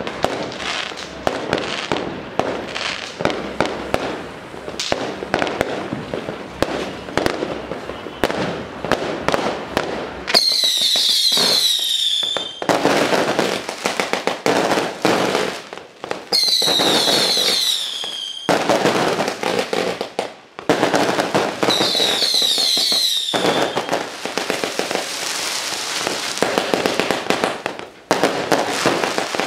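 Firecrackers going off in a dense, rapid crackle of pops. Three times, about ten, sixteen and twenty-two seconds in, a cluster of high falling whistles from fireworks sounds over them.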